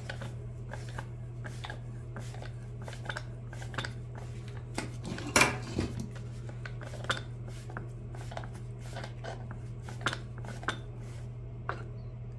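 Metal tools and shock-absorber parts clinking and knocking during a shock disassembly, a run of small sharp metallic clicks with one louder knock about five and a half seconds in.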